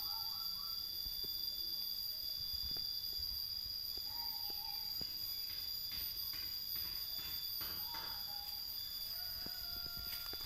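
Garden ambience: a steady high-pitched insect drone, a few short chirps about four and eight seconds in, and light scuffling in dry leaves around the middle as the cats play.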